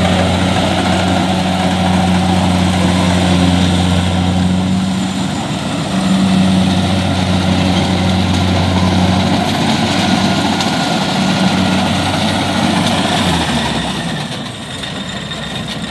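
Kubota DC-70 rice combine harvester running while it harvests, a steady low engine drone over the clatter of its machinery. The drone weakens and the level drops about thirteen seconds in.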